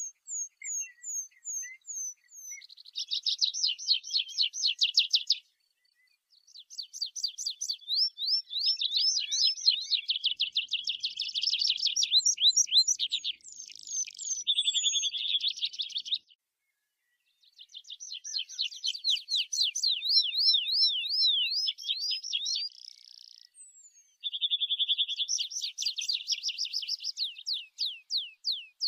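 Tree pipit singing: several high-pitched song phrases of fast trills and runs of repeated, sweeping down-slurred notes, separated by brief pauses.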